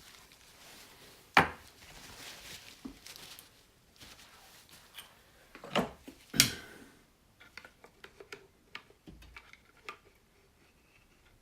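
Metal tools and engine parts clinking and knocking while the oil filter is being taken out of a BMW R80 airhead engine. A sharp knock comes about a second and a half in and two more close together around six seconds, followed by lighter ticks and clicks.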